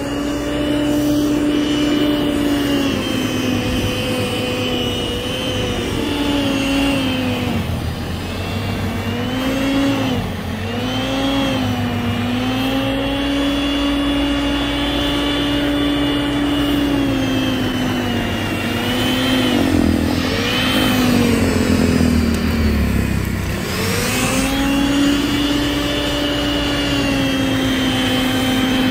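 Snow Joe SJ615E 15-amp corded electric snow blower running as its auger throws snow, a steady motor whine whose pitch sags and recovers several times as it pushes into deep snow.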